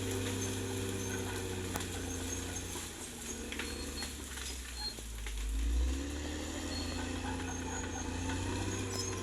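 Caterpillar D6R XL bulldozer's diesel engine running steadily. About halfway through its note thins and drops, then comes back with a deep surge and rises in pitch.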